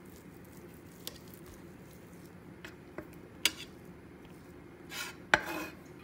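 Slotted metal fish spatula tapping and scraping on a wooden cutting board while smashing a boiled egg: a few light taps, a sharper clack about three and a half seconds in, and the loudest clack with a brief scrape after five seconds in.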